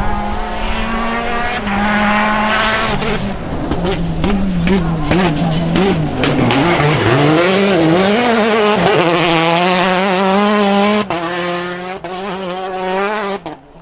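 Rally car engine at high revs on a gravel stage, its pitch holding, stepping and swinging up and down as the driver shifts and lifts through corners, with sharp pops and cracks. About three-quarters of the way through it abruptly gets quieter and holds a steadier note.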